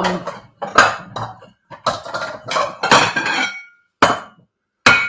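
Kitchenware clattering: a run of knocks and clinks of dishes, some ringing briefly.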